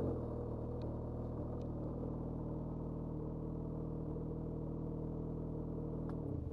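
Lynx Commander snowmobile engine easing off the throttle, then idling steadily as the sled stands. Near the end it is switched off and dies away.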